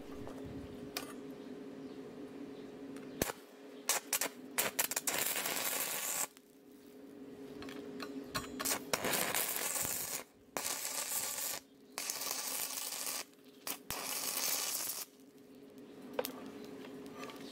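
Stick (arc) welder tack welding galvanized steel pipe: the arc crackles and sizzles in several bursts of one to three seconds, over a steady low hum.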